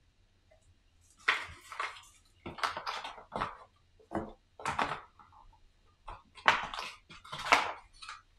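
Cardboard game box and tiles being handled: a run of about eight short, irregular rustling and knocking noises.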